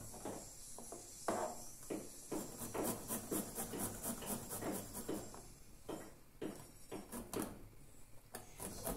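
Garlic cloves grated by hand on a small handheld metal grater: repeated rasping strokes, about two or three a second, with brief pauses.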